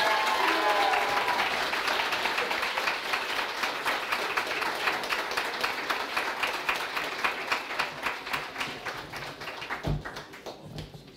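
Audience applauding: dense clapping with a few voices calling out at the start, thinning out and dying away toward the end.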